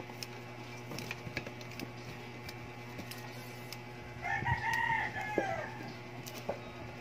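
A rooster crowing once, about four seconds in: a single rising-then-falling call lasting about a second and a half.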